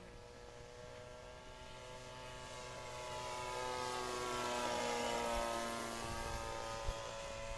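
Model airplane's two-stroke glow engine and propeller buzzing steadily in flight, growing louder as the plane passes nearest about two-thirds of the way through, then easing off a little.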